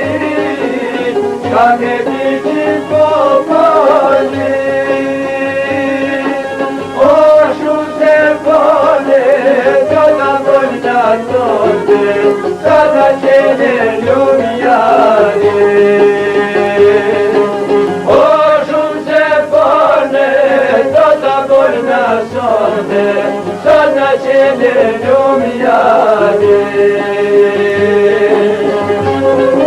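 Albanian folk music in a Middle Eastern style: a long, ornamented melody line with held notes that bend and turn, over a steady rhythmic accompaniment.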